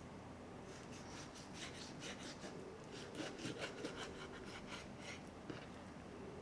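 Kitchen food-preparation sound: runs of quick, short scraping strokes, about five a second, starting about a second in and again around three seconds in.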